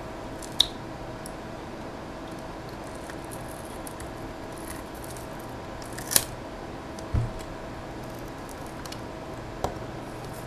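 Small flathead screwdriver scraping and prying at an adhesive label on a plastic external hard-drive enclosure: faint scratching with a few sharp clicks, the loudest about six seconds in, and a short low thump just after, over a steady hum.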